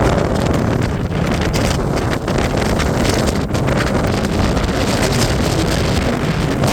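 Strong mountain wind buffeting the microphone: a loud, steady rumbling rush.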